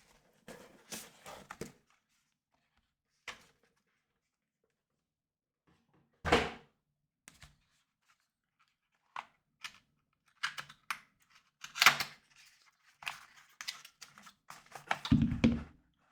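Packaging being handled and opened: irregular rustling and tearing with soft thunks, the heaviest thud about six seconds in and a longer one near the end.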